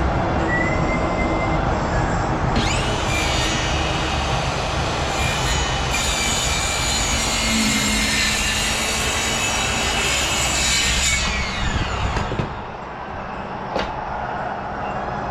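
A power tool's motor spins up about two and a half seconds in, runs steadily for about eight seconds, and winds down.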